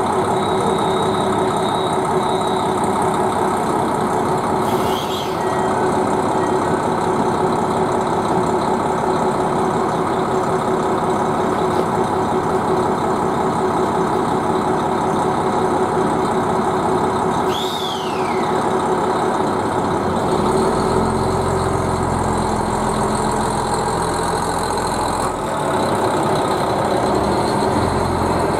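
JR Hokkaido KiHa 261 series diesel express railcars idling with a steady engine hum. About twenty seconds in, the diesel engines rev up with a deeper rumble as the train pulls away. Two short high falling squeals come about five and eighteen seconds in.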